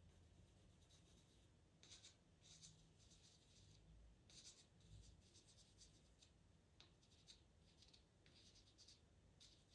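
Faint scratching of a white pastel pencil on Pastelmat paper: short bursts of light strokes, the first about two seconds in, then recurring every second or so.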